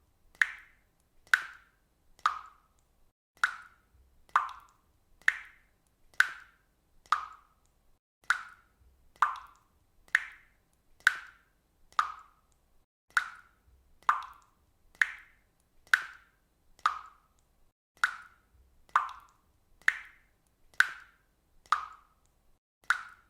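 Water dripping: single drops plopping into water at a steady pace of about one a second, each a short plop, the pitch alternating slightly from drop to drop.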